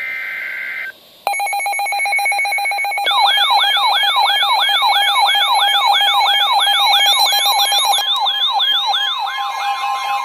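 EAS weather radio alert: a warbling two-tone SAME data burst ends about a second in. An electronic alarm follows, a fast-pulsing tone joined after about three seconds by a siren-like sweep falling over and over. Near the end the steady NOAA Weather Radio warning tone comes in beneath it.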